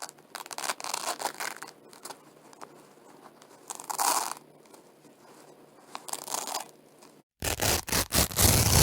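Velcro (hook-and-loop) strips being pulled apart in several separate ripping tears. Near the end, after a brief silent break, comes a louder run of quick short rips.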